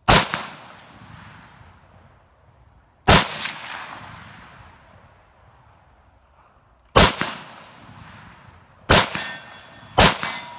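Five single rifle shots from a CMMG Mutant MK47 semi-automatic rifle in 7.62×39, fired one at a time, each report echoing away. The first three come several seconds apart and the last two about a second apart, with a ringing tone hanging after the last two.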